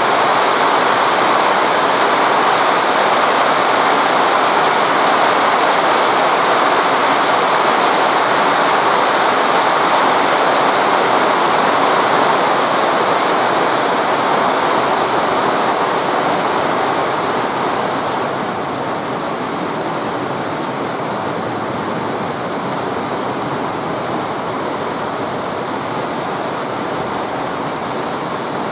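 Very heavy tropical downpour: a dense, steady rush of rain that eases slightly about eighteen seconds in.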